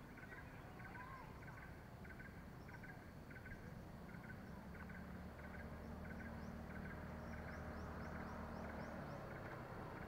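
Faint morning outdoor ambience: birds calling, one short call repeating about twice a second, with a few quick rising chirps later on. From about halfway a motorcycle engine hums in the distance, growing slowly louder as it approaches.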